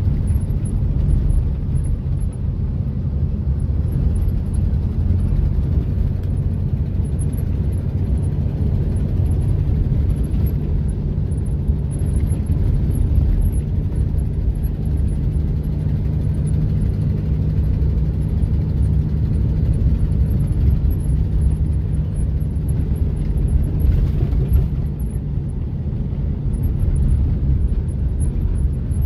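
Steady low rumble of a vehicle driving slowly on a snow-packed road, heard from inside the cab: an engine drone mixed with tyre noise on the snow.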